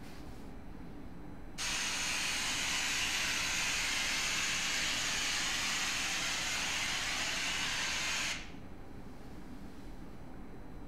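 A steady, even hiss from a handheld source starts abruptly about a second and a half in, holds for nearly seven seconds and cuts off suddenly, over a faint low room hum.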